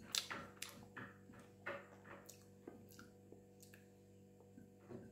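Faint, scattered wet clicks and squishes of someone eating ramen noodles with chopsticks: stirring and lifting the noodles on a plate, and chewing. The clicks are most frequent in the first two seconds.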